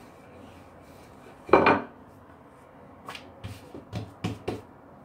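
Wooden rolling pin knocking against a stone-effect countertop while dough is rolled out and handled. One heavier thud comes about a second and a half in, then a quick run of about six light knocks near the end.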